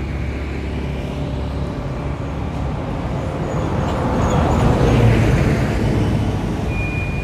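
Road traffic: a steady rumble of motor vehicles, swelling as one vehicle passes, loudest about five seconds in.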